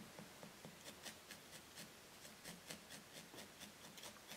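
Faint, rapid ticks of a two-needle felting tool stabbing repeatedly into wool, about four stabs a second.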